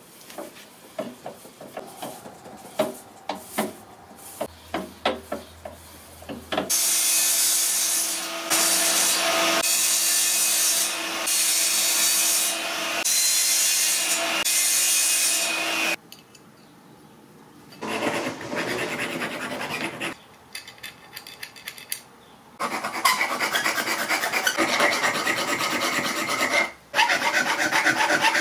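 Compound mitre saw running and cutting through aluminium for about nine seconds, a loud steady noise with a held motor tone. Light clicks and taps come before it, and near the end a hand file rasps in quick rhythmic strokes across the cut end of an aluminium channel.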